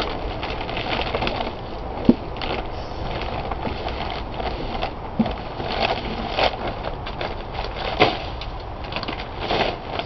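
Woven plastic feed bag of soil and dry potato stems rustling and crackling as it is gripped, lifted and tipped by gloved hands. A few sharp knocks cut through, the loudest about two seconds in and another about eight seconds in.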